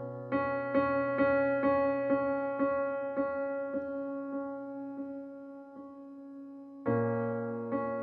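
Background piano music: a held chord with notes struck about twice a second, slowly fading, then a fresh chord struck near the end.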